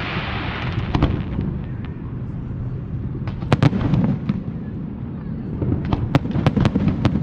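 Fireworks exploding: scattered sharp bangs and crackles, with clusters of reports about three and a half seconds in and again near the end, over a continuous low rumble of the display.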